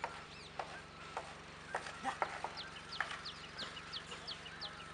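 Birds calling: scattered sharp chirps and clucks, then a fast run of short, high, down-slurred chirps, about three a second, through the second half.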